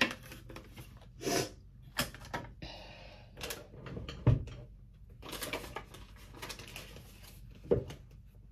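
Scattered clicks, taps and light rustling of makeup palettes and cases being picked up and set down on a counter, with one sharper knock about four seconds in.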